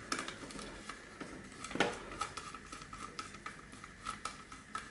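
Small clicks and ticks of a hand screwdriver turning out screws in a game console's casing, with one louder click about two seconds in.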